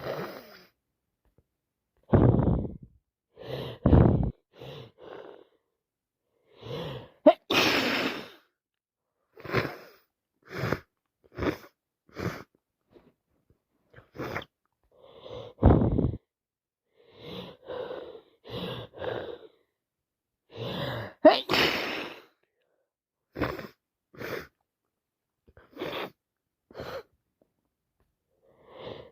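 A woman with a heavy head cold sniffing over and over in short, separate sniffs and quick breaths, with two sharp, wet sneezes, one about seven seconds in and another about two-thirds of the way through.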